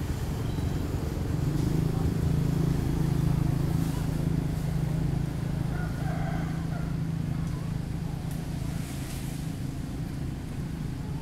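A motor vehicle's engine running: a steady low hum that grows louder about a second and a half in and eases off again near the end.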